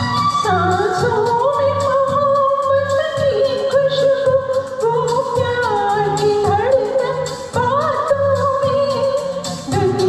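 A singer's voice carries a melody with held notes and slides, over instrumental accompaniment with a steady low beat.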